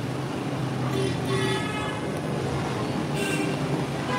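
Street traffic of auto-rickshaws, motorcycles and small vans below, engines running as a steady low hum, with short vehicle-horn toots about a second in and again near three seconds.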